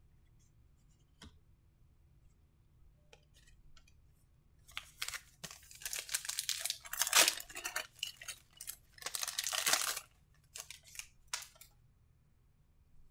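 A baseball trading card pack's wrapper being torn open and crinkled by hand, in two bouts of loud crackling tearing about five seconds in, followed by a few short crinkles.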